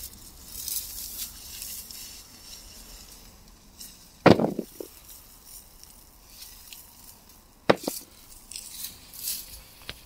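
Potato plants being pulled up by hand, their stalks and leaves rustling in the dry straw mulch, with two sharp knocks, about four seconds in and again near eight seconds, as potatoes are tossed into a plastic crate.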